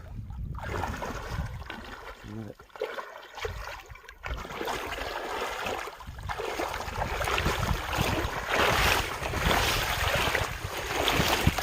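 Wind buffeting the microphone over moving river water, a rough rushing noise with a low rumble that dips for a moment and then grows louder in the second half.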